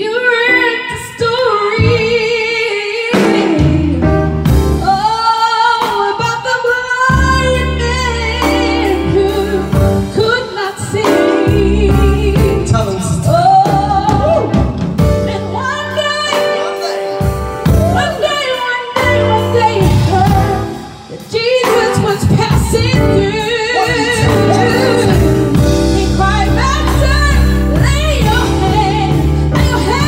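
Women singing a gospel worship song into microphones, their voices wavering with vibrato over steady low accompanying notes, with a brief break about twenty seconds in.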